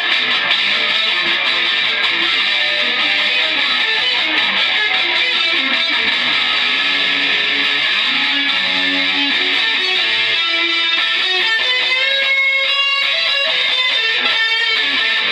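Electric guitar played loud and without pause, dense chords and runs that give way to more separate notes in the last few seconds.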